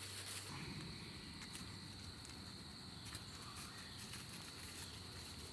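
Faint, steady high-pitched chirring of crickets in the woods, running unbroken.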